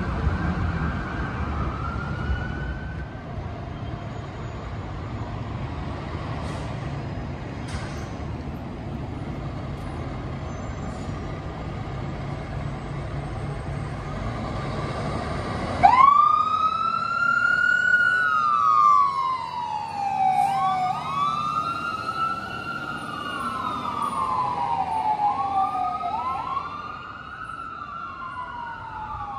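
Heavy engine and street traffic running for about the first half. Then, after a sudden change, emergency sirens on responding fire apparatus wail, each sweep rising quickly and falling slowly, with two sirens overlapping out of step.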